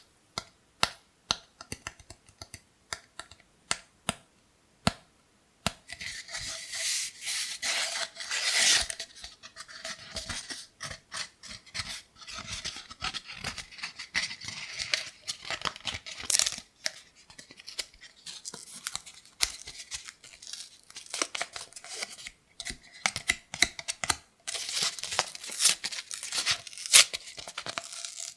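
Cardboard kitchen-roll tube being tapped, single sharp taps with gaps between them, for about the first five seconds. It is then scratched and rubbed, a near-continuous scratchy noise with quick taps running through it.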